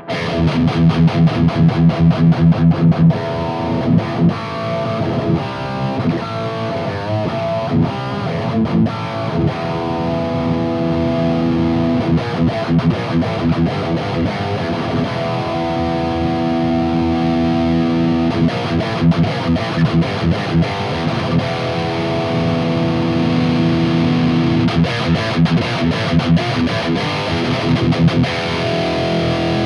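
High-gain distorted electric guitar played through a Mooer Brown Sound preamp pedal, a 5150-style preamp. It opens with about three seconds of fast, evenly spaced chugging notes, then moves into riffs and held, ringing chords while the pedal's treble control is run through its range.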